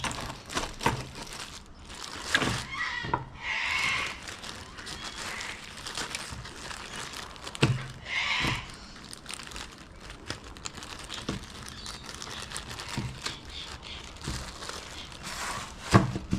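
Plastic packaging crinkling and rustling in short bursts while small kit parts are handled, with scattered clicks and light knocks of hard plastic and metal pieces.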